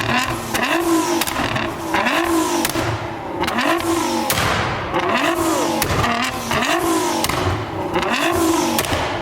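Nissan GT-R's twin-turbo V6 revved in quick repeated blips, about ten in a row, each note rising and dropping, with exhaust pops and crackles between them.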